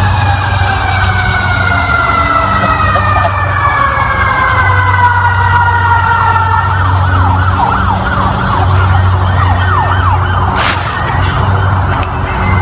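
Emergency vehicle siren: a slow wail falling in pitch, switching about halfway through to a fast yelp. A low hum comes and goes underneath.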